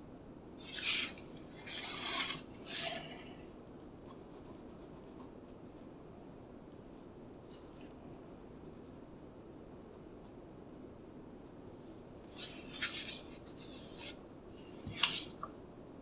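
Pencil strokes scratching on paper from a Pentel GraphGear 1000 0.5 mm mechanical pencil, in quick bursts of hatching. Several bursts come about a second in, then faint light ticks, then another run of strokes in the last few seconds, the loudest of them near the end.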